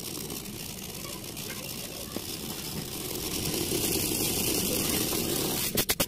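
LG inverter refrigerator compressor starting up in test mode: a steady running hum that grows louder about three seconds in as it ramps up. Just before the end a fast, even pulsing begins, about four beats a second.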